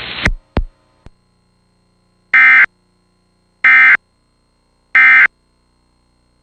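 Emergency Alert System end-of-message (EOM) tones: three identical short digital data bursts about 1.3 seconds apart, signalling that the alert broadcast is over. A hiss of static cuts off just after the start.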